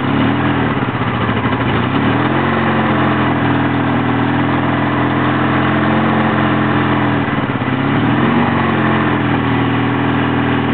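1984 Honda V65 Magna's V4 engine running after a very hard start, worked on the throttle to keep it alive. The revs rise about two seconds in, hold, drop back around seven seconds, then blip briefly a couple of times near the end.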